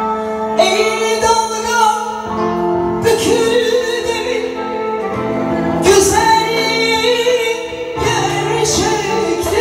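A woman singing a Turkish song live into a microphone, her voice bending and wavering on held notes over live instrumental accompaniment.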